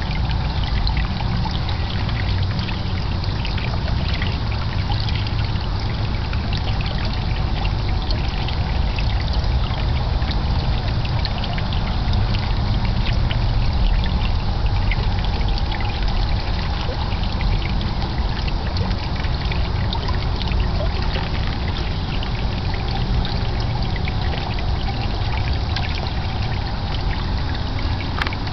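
Water pouring and trickling steadily into a small garden fish pond, with many small splashes.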